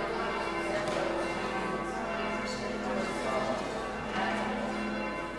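Church bells ringing together, several bells sounding at once, heard from inside the church.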